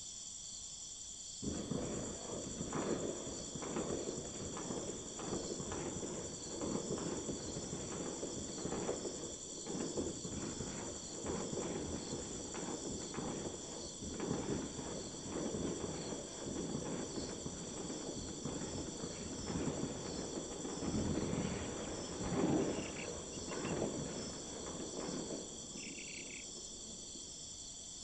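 Steady high chirring of crickets or other insects, with a long stretch of irregular rustling and scratching over it from about a second and a half in until near the end, and a short high chirp near the end.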